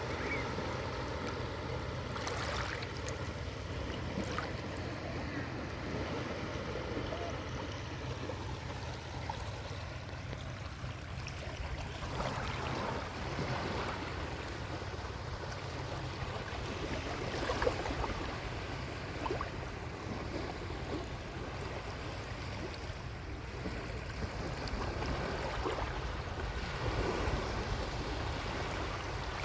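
Small sea waves washing onto a beach in a steady hiss with a low rumble, swelling and easing as each wave comes in, with faint voices of people playing in the water far off.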